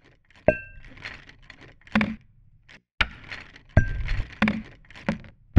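Metal hand tools dropping and clattering one after another: about seven sharp hits, two of them with a brief metallic ring.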